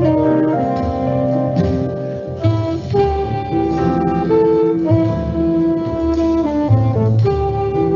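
Instrumental background music: a melody of held notes over a continuous bass line.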